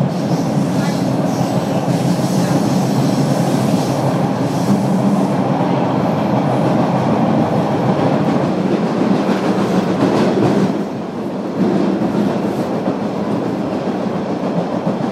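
TTC subway train running through a tunnel at speed, heard from inside the car: loud, steady noise of wheels on rails, easing briefly about eleven seconds in.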